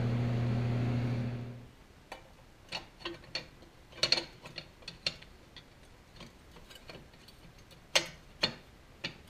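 A steady low hum cuts off about a second and a half in. Then come scattered light clicks and knocks as the parts of a 1966 Ford Galaxie steering column, its collar and column tube, are handled and fitted together. The sharpest clicks come around four and eight seconds in.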